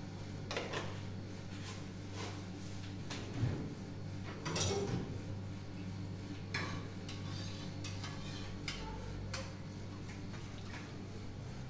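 Scattered clinks and knocks of dishes and utensils being handled, about a dozen in all, the loudest about three and a half and four and a half seconds in, over a steady low hum.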